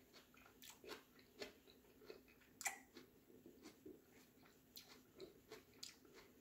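Faint, wet chewing of a mouthful of salad with the mouth closed: soft irregular clicks and smacks, one sharper click about two and a half seconds in.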